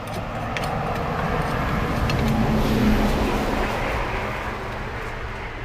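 A road vehicle driving past, its sound swelling to a peak about halfway through and then fading.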